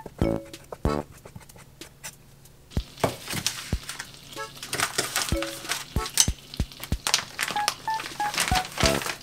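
Light background music of short plucked notes. In the first second a knife chops rapidly through thin egg crepe on a wooden cutting board, and from about three seconds in, oil sizzles in a hot frying pan.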